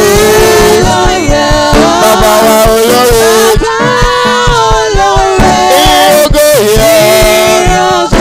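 Live gospel singing by a man and two women with microphones, over a steady drum beat, with beaded gourd shakers (shekere) played along.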